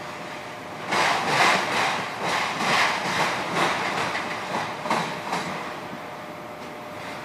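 Freight train of autorack cars rolling past, wheels clattering over the rails. About a second in a run of loud irregular clanks and rattles starts, lasting several seconds before easing back to a steady rumble.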